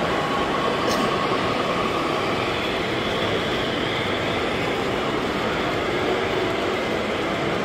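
Model freight train rolling past on a layout: a steady rumble of the cars' wheels running over the track.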